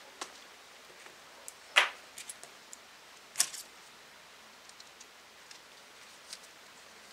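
Scattered clicks and clinks of small valve-cover bolt spacers and seals being handled on a workbench, with two louder clinks about two and three and a half seconds in.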